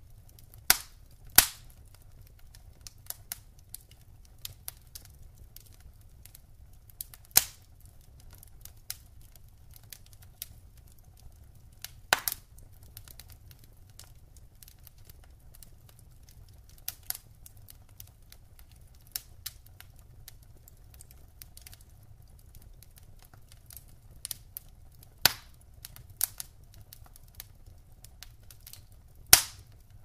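Logs burning in a fireplace, crackling and popping irregularly. The pops come every second or so, a few of them sharp and much louder than the rest, over a faint low rumble.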